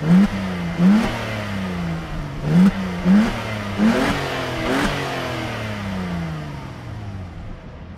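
Audi A4 B5's 2.4-litre 30-valve V6, breathing through a Remus aftermarket exhaust, free-revving while stationary. There are six quick throttle blips in the first five seconds, each a sharp rise and a slower fall. Then the revs sink slowly back toward idle.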